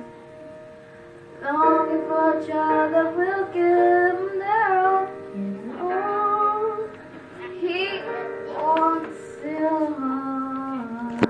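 Two girls singing a song together into microphones over instrumental accompaniment with a guitar-like sound. The voices come in about a second and a half in after a quieter stretch, and there is a sharp click right at the end.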